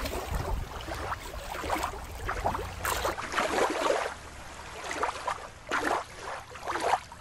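Water lapping and sloshing in small irregular splashes, with a low rumble under it for the first three seconds.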